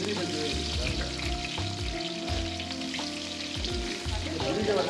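Sliced onions and green chillies tipped into hot oil in a large aluminium pot, sizzling and frying steadily: the onions starting to fry for a biryani base.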